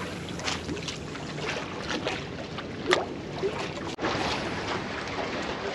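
Seawater washing and splashing against shore rocks, with wind on the microphone and a sharp click about three seconds in.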